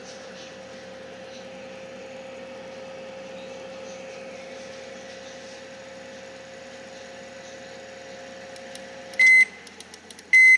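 Microwave oven running with a steady hum, which cuts off about nine seconds in, followed by two short high-pitched beeps about a second apart.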